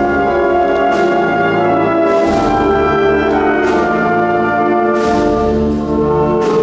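Symphonic wind band playing a Spanish processional march, full brass with sustained chords over a slow steady drum beat.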